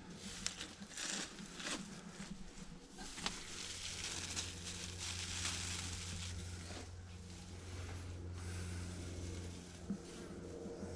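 Tractor engine running steadily at low revs, getting louder a few seconds in, with rustling and a few sharp clicks over it.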